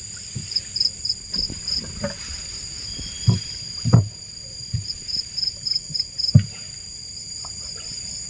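Night insects, crickets, sing in a steady high chorus, with short trilled pulses about half a second to two seconds in and again around five to six seconds. Several dull knocks come through it, the loudest about four seconds in and about six and a half seconds in.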